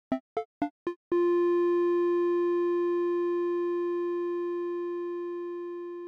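Background music: a run of short plucked notes, about four a second, then about a second in a single long held note that slowly fades.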